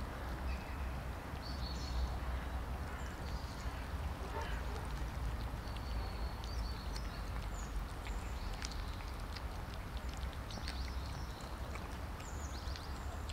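Several cats eating wet cat food from plastic trays: many small wet clicks and smacks of chewing and licking. Short high bird chirps are heard over the top, with a low steady rumble underneath.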